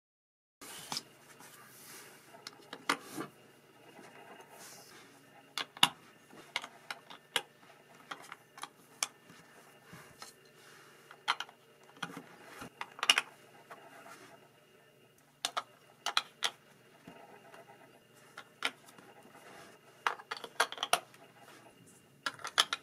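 LEGO bricks being handled and pressed together by hand: irregular sharp plastic clicks and clatter, some loud, over faint room tone with a faint steady high whine underneath.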